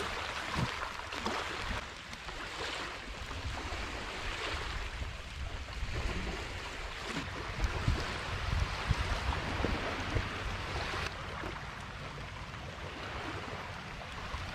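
Small waves lapping on a sandy riverbank, a steady wash of water, with wind rumbling on the microphone.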